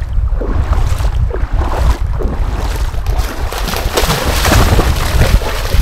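Wind buffeting the microphone throughout. From about three and a half seconds in, splashing as a dog bounds through shallow seawater.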